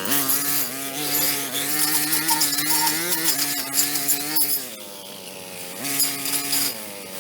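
Small handheld power tool motor running at a high, steady pitch. It eases off about four and a half seconds in, comes back up to speed near six seconds, and drops off again near the end.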